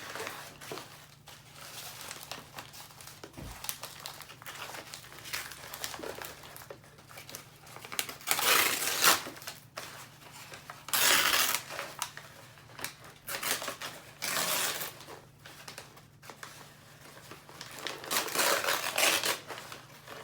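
Plant packaging wrapping being crinkled and torn open by hand, in several rustling spurts that come mostly in the second half.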